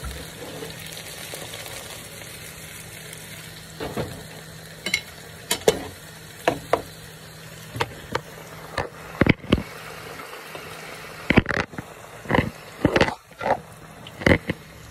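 Garlic frying in olive oil in a pan, a low steady sizzle just starting. From about four seconds in it is broken by a series of sharp knocks and bumps from handling the pans.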